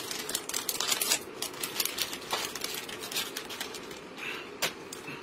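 Plastic packaging being unwrapped: film and clear trays of sliced beef crinkling and crackling in quick, irregular clicks.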